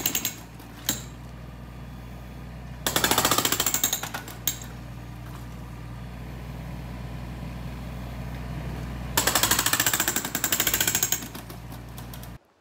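Hydraulic breaker on a Takeuchi mini digger hammering concrete in bursts of rapid blows. There is a short burst at the start, another about three seconds in, and a longer one of about two seconds near the end. The digger's engine runs steadily between bursts.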